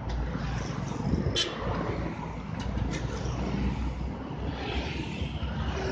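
Komatsu PC200 hydraulic excavator's diesel engine running steadily as it digs in river mud, with a few short knocks about one and a half and three seconds in.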